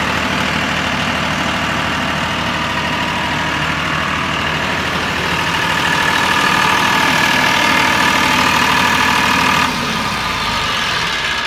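2014 Mahindra 6530 tractor's diesel engine idling steadily. It grows louder for a few seconds in the middle, with a higher whine over it, and its note drops near the end.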